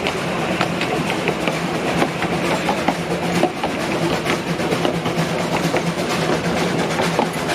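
Narrow-gauge train running along the track: a steady rumble and hum with rapid, irregular clicking and clatter of wheels on the rails.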